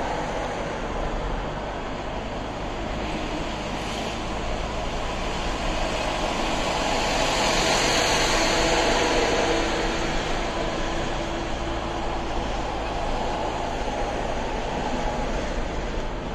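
Steady road and tyre noise of a moving car, heard from inside the cabin at highway speed, swelling louder for a few seconds midway.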